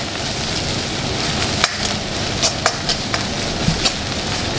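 Chopped coriander leaves, onion and green chilli sizzling in hot coconut oil in a pan, a steady frying hiss. A spatula stirs them, and it clicks and scrapes against the pan now and then.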